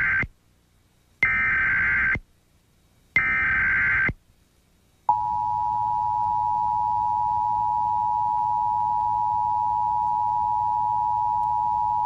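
Emergency Alert System broadcast: the end of one digital SAME header burst, then two more roughly one-second bursts of screechy two-pitch data tone about two seconds apart. About five seconds in, the EAS two-tone attention signal starts and holds as a steady, unbroken dual-tone buzz.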